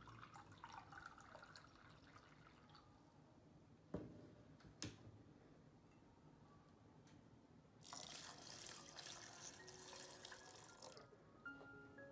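Faint drips and crackles, then two light clicks, then water running for about three seconds while berries are rinsed in a glass bowl.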